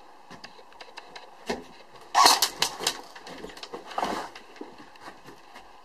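Airsoft gunfire: a string of sharp cracks, with a quick cluster of several shots about two seconds in and another short cluster about four seconds in.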